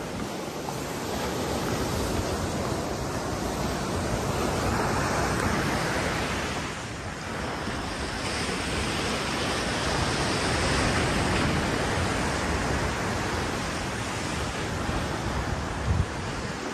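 Mediterranean surf breaking and washing up the beach, a continuous rushing that swells and eases every few seconds, with wind buffeting the microphone. A brief low thump near the end.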